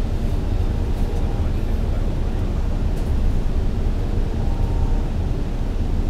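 Cabin noise inside a MAN A95 double-decker bus travelling at speed: a steady low engine and road rumble.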